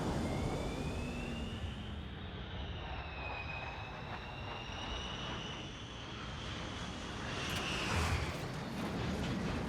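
Jet fighter engine running, a high whine that rises and wavers in pitch over a steady rumble, growing louder about eight seconds in.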